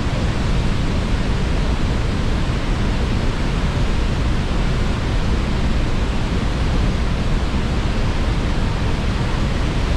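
Steady roar of Niagara's Horseshoe Falls heard up close: an unbroken rush of falling water, heaviest in the low range.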